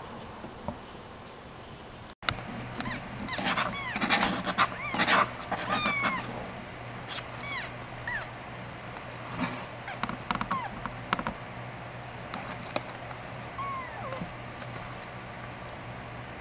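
Newborn kitten mewing in many short, high cries from about three seconds in, thinning to a few spaced cries later. Clicks and rustling from its scrabbling on a paper pet pad run through the cries.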